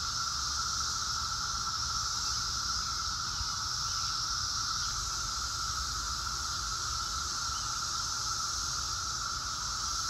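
Chorus of Brood X periodical cicadas: a steady, unbroken drone from many insects at once, with a hissing edge above it.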